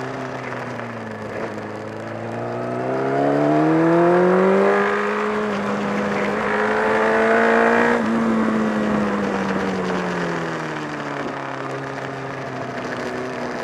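Honda CBR1000RR inline-four engine under way: its pitch climbs for about three seconds and holds high, then drops back over about three seconds when the throttle closes, about eight seconds in. The owner reports that this engine has developed a flapping noise and lost torque.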